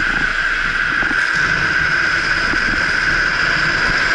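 Drift trike rolling fast downhill on asphalt: a steady roar from its wheels on the road, with a constant high whine and wind on the microphone.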